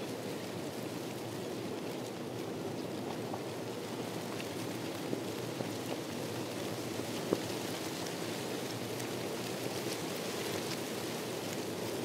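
Steady rushing noise of an outdoor nature ambience, with three brief faint ticks around the middle.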